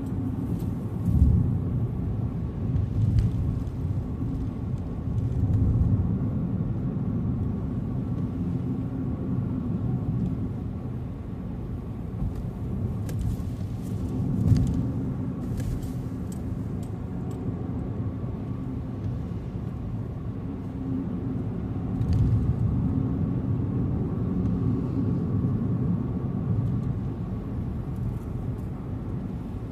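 Car driving on a highway: steady low road and engine rumble, with a few brief louder bumps, the sharpest about a second in and another around fourteen seconds in.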